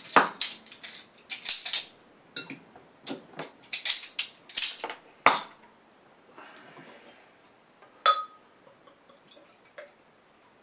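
Glass beer bottle with a twist-off crown cap being opened and handled: a run of sharp clicks and clinks over the first five seconds, then one ringing clink of glass a little after eight seconds.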